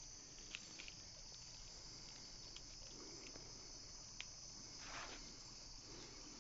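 A night insect chorus: a steady, high-pitched cricket trill, faint, with a few soft clicks scattered through it and a brief soft noise about five seconds in.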